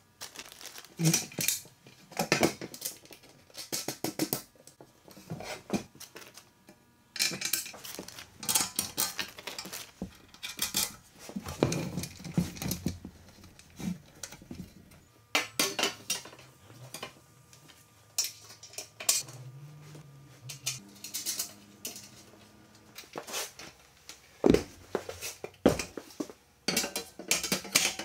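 Steel stand brackets, bolts, nuts and washers clinking and clattering irregularly as they are handled and fitted together, with two heavier metal knocks near the end.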